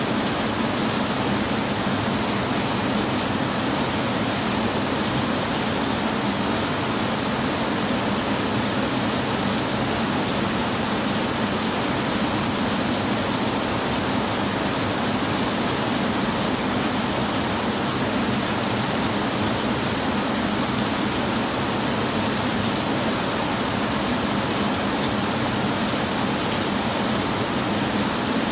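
Steady heavy rain on a tin roof: an even, unbroken hiss at a constant level, with no thunder heard.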